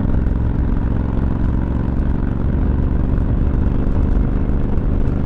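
Motor vehicle cruising at highway speed: a steady engine drone with road noise.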